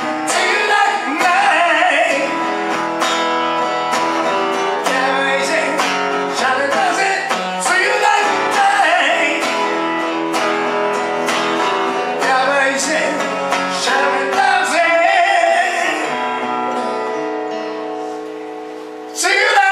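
A man singing a slow song over a strummed acoustic guitar, played live. The singing comes in phrases between stretches of guitar alone, and the strumming grows softer late on, then comes back strongly just before the end.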